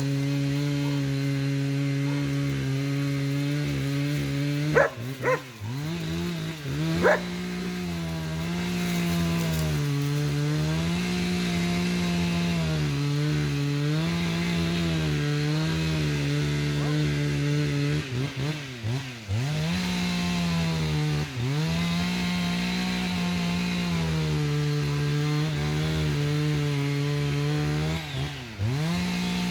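Two-stroke chainsaw cutting into a eucalyptus trunk at high revs. Its pitch drops and climbs back sharply twice about five to seven seconds in, then wavers as the chain bites into the wood, sagging briefly and recovering twice more.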